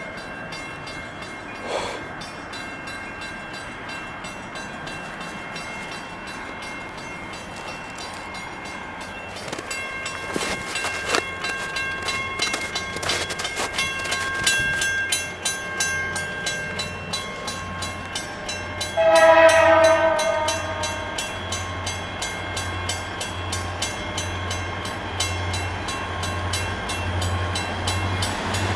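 Train horn blowing over a moving train. A short blast comes about two seconds in, fainter held chords come midway, and a loud blast comes a little past two-thirds of the way through. From about a third of the way in, the train's low rhythmic rumble and clatter keeps pulsing steadily beneath.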